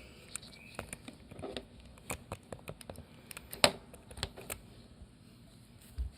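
Computer keyboard keys pressed one at a time in an irregular pattern of separate clicks, one struck harder a little past halfway, as each key is tested.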